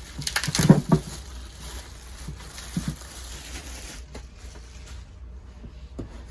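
Packaging being handled while a speaker box is opened: a quick flurry of rustles and knocks about half a second in, then quieter rustling with a few light taps.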